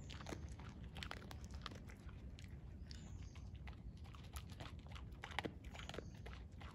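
Dog eating dry kibble, crunching and chewing in quick irregular bites.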